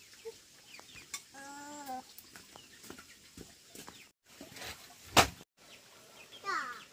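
Chickens clucking, with scattered small clicks and one loud sharp knock a little after five seconds in.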